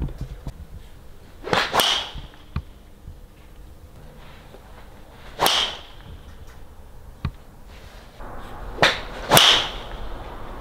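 Golf balls struck off driving-range mats: sharp cracks of clubface on ball, each with a short swish of the club through the air. One comes about a second and a half in, another about five and a half seconds in, and a pair near the end.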